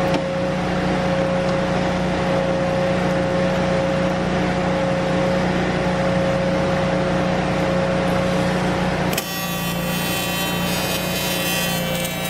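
TIG welding arc on the car's aluminium front frame: a steady buzzing hiss as the filler rod is fed in. About nine seconds in it dips briefly and carries on, slightly changed in character.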